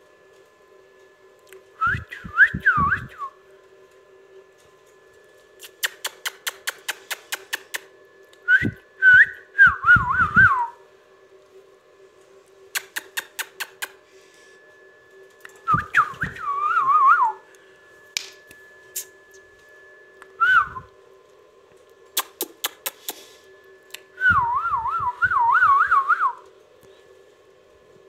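Indian ringneck parakeet whistling in short warbling phrases, about five bursts with quickly wavering pitch, between runs of rapid sharp clicks.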